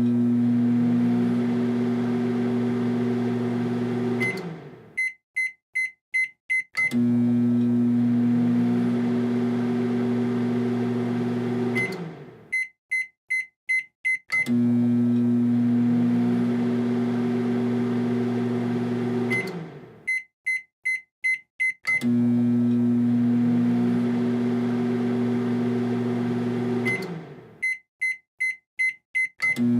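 Microwave oven cycling over and over: a steady low running hum for about five seconds that winds down, then a quick run of about six high beeps, then the hum starting again. The cycle comes round about four times.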